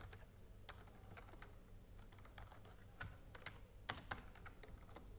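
Faint typing on a computer keyboard: scattered single keystrokes, with a quicker run of sharper taps about three to four seconds in.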